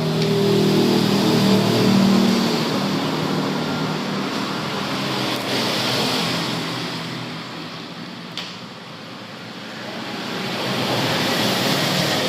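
Steady rumbling noise of a car in motion, swelling and fading in loudness, with a single click about eight seconds in.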